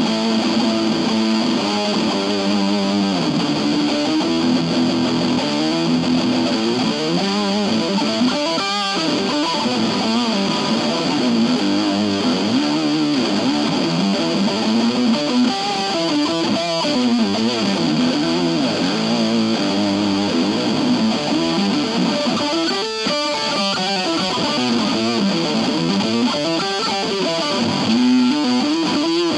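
IYV Thinline Telecaster-style electric guitar played through a Keeley compressor and a Pigtronix Space Rip synth-fuzz pedal into an Orange Crush 20 amplifier: sustained distorted notes and chords with wavering, bending pitch.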